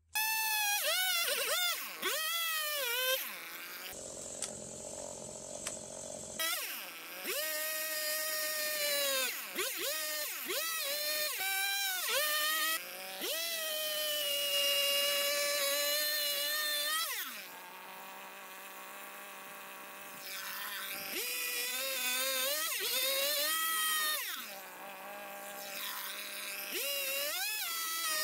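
Stihl two-stroke chainsaw cutting through a log, its engine pitch rising and sagging as the chain bites into the wood. Three times it eases off to a quieter, steadier note before being revved into the cut again.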